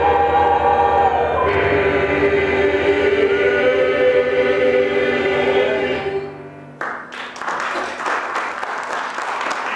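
Mixed choir singing, holding long chords that end about six seconds in, followed by audience applause.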